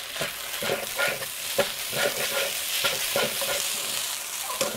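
Wooden spatulas stirring and scraping fried rice around a hot non-stick wok, with irregular strokes about twice a second over a steady sizzle as the seasoning sauce is mixed through.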